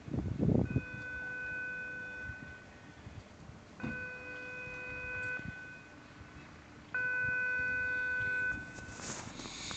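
Warning horn of a swinging harbour footbridge sounding three steady, even-pitched blasts, each about one and a half to two seconds long with a pause of about a second between them. The third blast is the loudest. A short hiss comes near the end.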